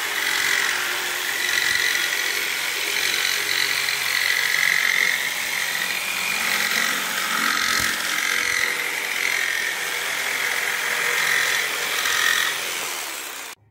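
An old DeWalt electric jigsaw cutting a curved line through a pine board with a narrow, fine-toothed Makita blade. It runs continuously, its pitch wavering a little, and cuts off suddenly at the very end.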